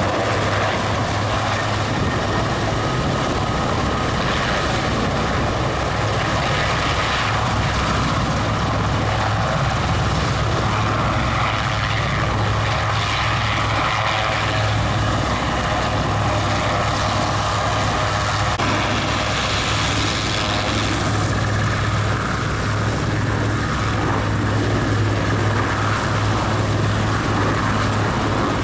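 An AS.332B Super Puma and an AW101 helicopter running close by on the ground, rotors turning: steady, loud rotor noise with the turbines' whine over it.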